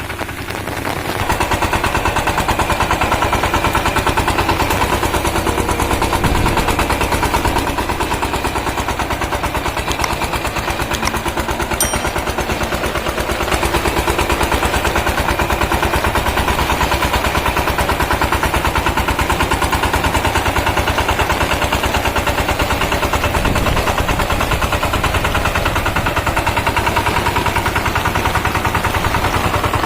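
Power tiller's single-cylinder diesel engine running with a rapid, even chugging. It picks up about a second in, eases a little for a few seconds midway, then picks up again.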